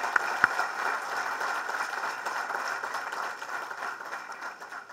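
Audience applauding, a roomful of hands clapping, with a few sharp, close claps in the first half second. The applause fades steadily and dies away at the end.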